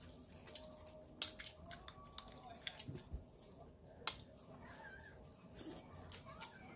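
Person eating rice noodle soup: scattered sharp clicks and smacks of chewing and mouth noises, close to the microphone.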